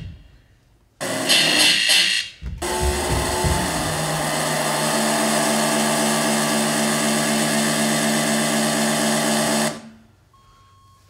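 Electronic dance-performance score: after a second of near silence, a dense buzzing noise with steady low held tones starts suddenly, breaks off briefly, then runs on evenly and cuts off abruptly near the end.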